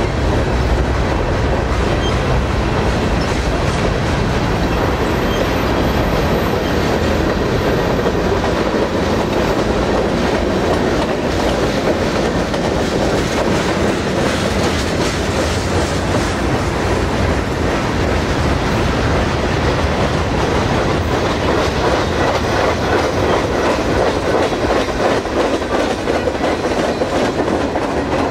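Freight train cars rolling by: a steady rumble and rattle of the cars with the clickety-clack of steel wheels on the rails.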